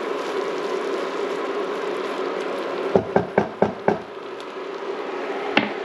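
A silicone spatula knocked against the rim of a pan about six times in quick succession, shaking off cooked black rice, over a steady hiss and hum from the pan on the induction cooker.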